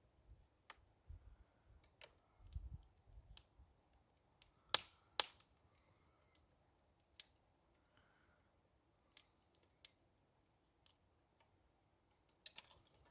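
Branches burning in a small brush-pile fire, crackling with sparse sharp pops and snaps at irregular intervals, the two loudest close together about five seconds in.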